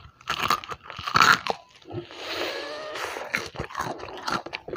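Crispy breaded fried chicken thigh being bitten and chewed: a few loud, sharp crunches of the crust in the first second and a half, then chewing with smaller crackles.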